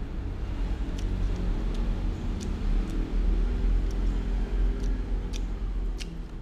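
Low rumble of a motor vehicle's engine, swelling a little in the middle, with sharp light clicks about once a second.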